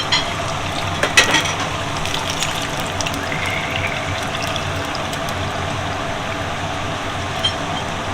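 A steady rushing noise with a low hum under it, and a few sharp clicks, the loudest about a second in and a light one near the end.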